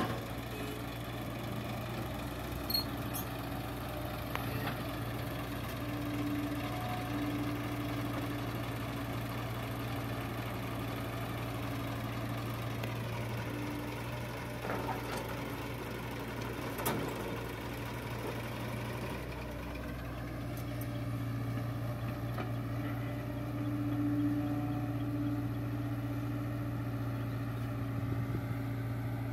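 Diesel engines of two farm tractors and a hydraulic excavator running steadily at idle, with an even low drone and a few faint ticks.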